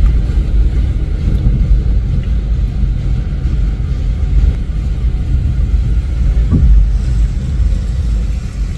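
Deep, steady rumble of vehicles on a rain-flooded road.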